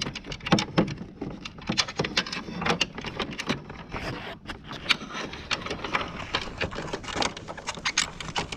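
Irregular clicking, tapping and rustling of electrical wires being fed by hand up through the plastic housing of a mini split's indoor unit.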